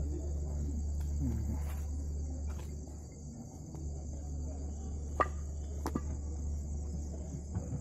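Crickets chirring steadily under a steady low rumble, with two sharp clicks about five and six seconds in.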